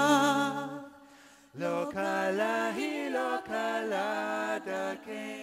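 Closing music: a held chord fades out about a second in, then unaccompanied singing voices begin in short sung phrases.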